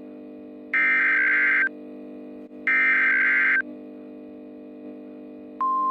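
Emergency Alert System SAME header data bursts: two short buzzy digital bursts about a second long, a second apart, over a low steady drone. They mark the start of an emergency alert, here a blizzard warning. Near the end the NOAA Weather Radio 1050 Hz warning alarm tone starts as a single steady high tone.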